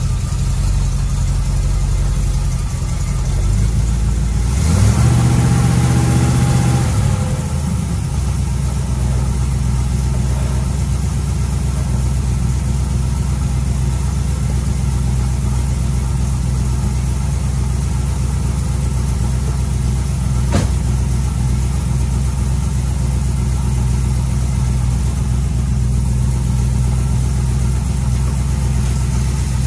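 Small-block Chevy 350 V8 idling cold on a newly fitted HEI distributor, with a short rev about five seconds in that rises and falls back to idle. A single sharp click partway through.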